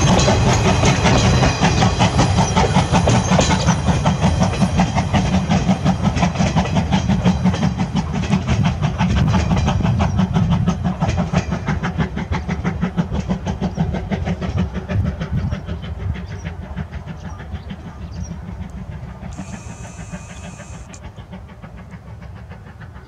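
Steam tank locomotive pulling a train of passenger coaches away along the line, its rapid exhaust beats and wheel clatter on the rails fading steadily as it recedes.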